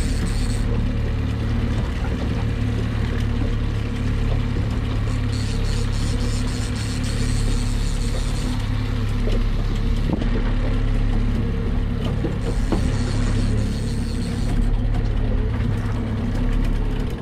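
Boat motor running steadily with an even low hum.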